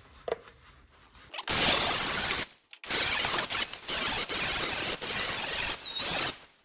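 Grinder cleaning sheet steel down to bare metal for welding. It starts about a second and a half in, runs about a second, pauses briefly, then runs again in long passes, its whine dipping in pitch each time it bites into the metal.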